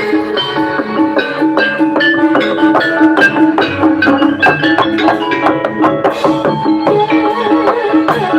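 Javanese gamelan music for a jathilan horse dance: metallophones ring a busy melody of struck notes over frequent drum strokes.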